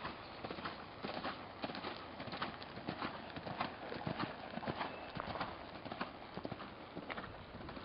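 A horse's hoofbeats: an uneven run of dull thuds and clicks, several a second.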